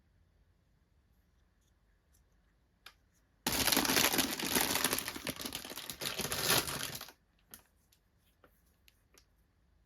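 Doll packaging crinkling and tearing for about three and a half seconds, a dense crackle, with a few light clicks and taps before and after.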